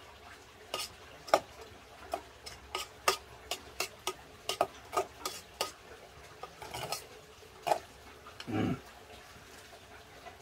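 A spoon clinking and scraping against a pot in about fifteen sharp, irregular strokes as rice, lettuce and stir-fried eggplant are mixed and eaten from it. A short lower-pitched sound follows about eight and a half seconds in.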